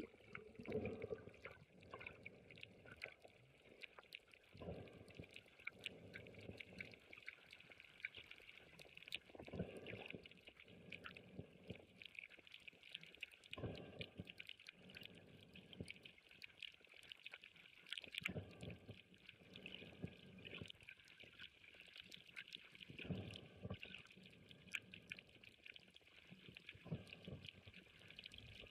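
Faint underwater ambience over a coral reef: a steady fine crackle, with dull water swells about every four to five seconds.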